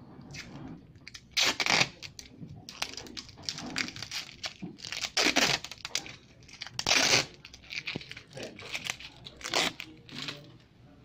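Clear pressure-sensitive adhesive tape being peeled off its roll in about five short rasping rips with faint crackling between them. These are the first turns of the roll, unwound to be discarded at the start of a dust tape test.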